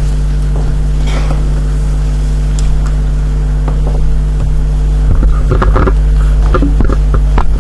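Loud steady low hum with a few fixed higher tones over it, the background noise of the lecture-hall recording, with scattered faint knocks and rustles; from about five seconds in, louder muffled knocks and rustling rise over the hum.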